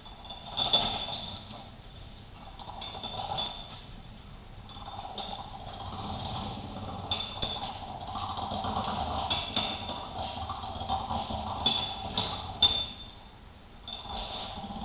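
Jointed wooden leg linkage of a walking furniture piece creaking and squeaking as it steps, with scattered clicks from its pin joints; the noise swells and fades with each stride.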